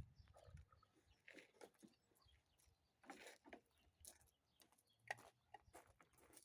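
Near silence with faint, scattered clicks and light taps, a few a second at irregular intervals.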